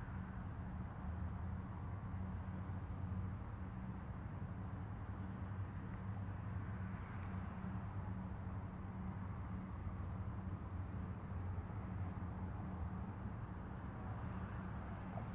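Steady low hum over a faint hiss, with a faint, evenly repeating high ticking above it.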